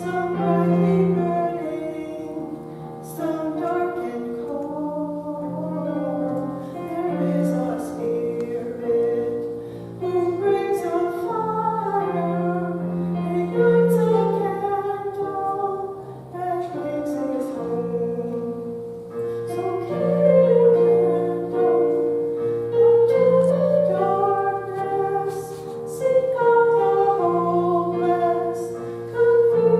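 A woman singing a slow song over steady instrumental accompaniment, with several long held notes.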